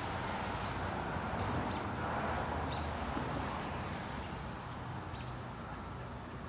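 Outdoor ambience: a steady low rumble and hiss, with faint, brief bird chirps several times.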